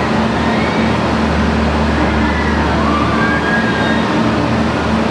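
ERF E10-325 truck's diesel engine idling steadily, a low hum with an even pulsing beat. From about two seconds in, thin high-pitched tones that slide up and down sound over it.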